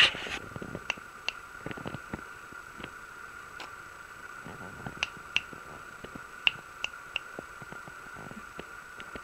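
A series of short, sharp clicks, about a dozen at uneven intervals, over a steady high-pitched hum, with a louder knock right at the start.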